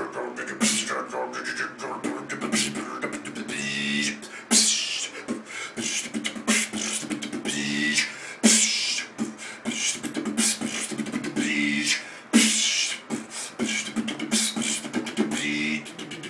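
Solo beatboxing by a man: a steady rhythm of mouth-made kick, click and hi-hat sounds over a low held vocal tone, with a loud hissing snare-like blast about every four seconds.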